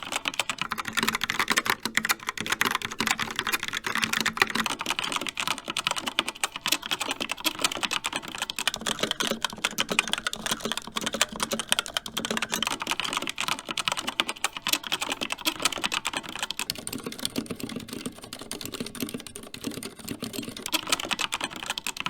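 Fast typing on mechanical keyboards in turn, a dense run of keystrokes throughout. First a Logitech Pop Keys with TTC Brown switches, then about nine seconds in a Razer Pro Type with Razer Orange switches, then about seventeen seconds in a CZC Halfling with Cherry MX Silent Red switches.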